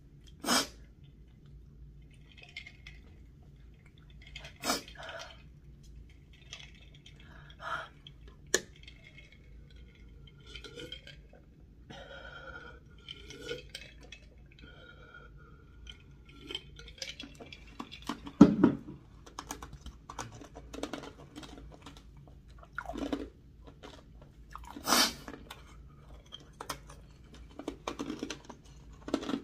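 Close-miked drinking: sips and gulps of milk from a glass mason jar, between scattered sharp knocks of the glass jar and a plastic straw against the table. The loudest knock comes a little past halfway.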